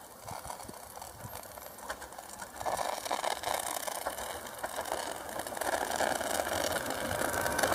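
Stadler FLIRT electric multiple unit approaching, its running noise of wheels on rails and motors getting steadily louder as it nears, with a clear jump about two and a half seconds in.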